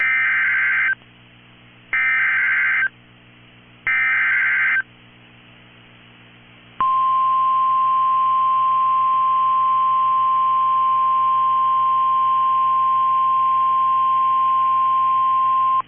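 Emergency Alert System SAME header: three one-second bursts of digital data tones about two seconds apart. About seven seconds in comes the steady single-pitch 1050 Hz weather-radio alert tone, held for about nine seconds, announcing a National Weather Service severe thunderstorm warning.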